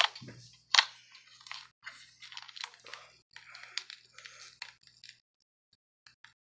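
Slime being squeezed and poked by hand, giving a dense run of crackling, popping clicks that stops about five seconds in, leaving only a few faint ticks.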